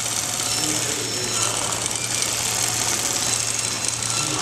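Automatic pattern sewing machine stitching at speed: a fast, even mechanical rattle over a steady low hum.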